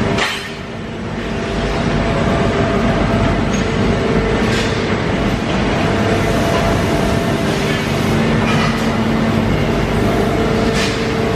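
Steady, loud industrial machinery noise in a factory hall: a dense mechanical rumble with a steady hum, dipping briefly just after the start.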